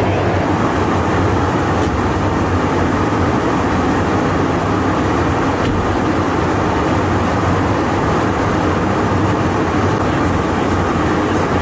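Steady drone of jet engines and rushing airflow heard inside an air-refuelling tanker in flight during refuelling, with a low hum running under it.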